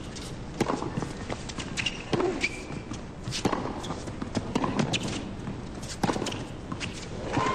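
Tennis rally: the ball is struck back and forth by rackets with a sharp pop about every second, some strokes accompanied by a player's short grunt.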